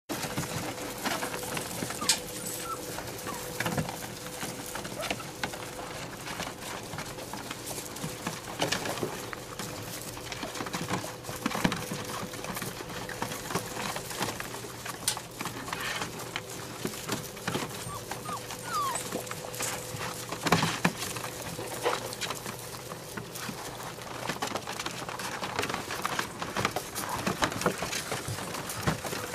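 Five-week-old golden retriever puppies scrabbling and bumping about in a hard plastic kiddie pool: irregular clicks and knocks of claws and paws on the plastic, with short, high puppy squeaks now and then.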